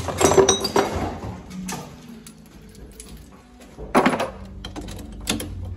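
Brass hose fittings and cam-lock couplings clinking and clattering as they are handled in a hard plastic tool case, with a sharp knock about four seconds in.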